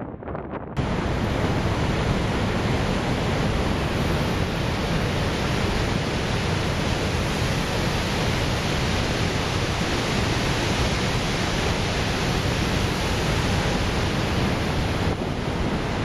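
Steady, even roar of Niagara's Horseshoe Falls heard up close, starting abruptly about a second in.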